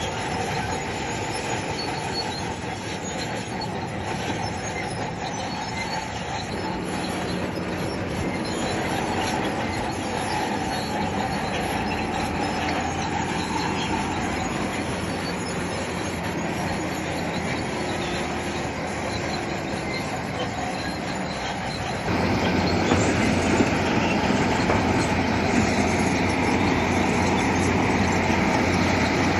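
Crawler bulldozer at work, its diesel engine running under the steady clatter of its steel tracks; the sound steps up louder about three quarters of the way through.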